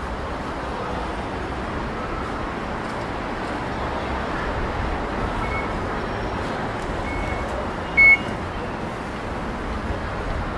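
Steady background noise of a busy elevated train station concourse, with a few short high electronic beeps from the fare gates. The loudest is a brief sharp beep about eight seconds in.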